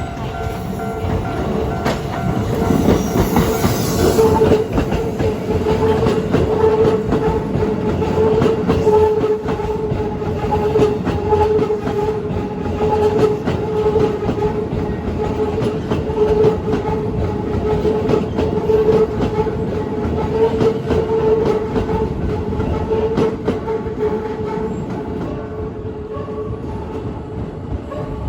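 Keikyu 600 series electric train passing over a level crossing, its wheels clattering over the rail joints. The sound swells after a couple of seconds, holds, then eases off near the end. The crossing's warning bell rings steadily underneath throughout.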